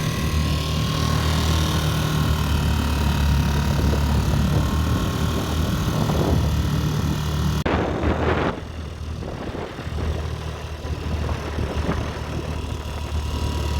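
Dinghy's outboard motor running at a steady speed, a constant engine drone, with a brief rushing noise about eight seconds in.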